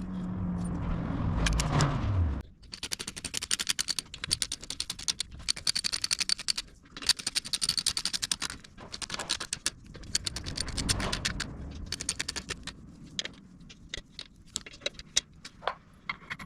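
A small motor hums steadily and winds down about two seconds in. Then comes a long run of fast metallic clicking and rattling, thinning out into scattered clicks and taps.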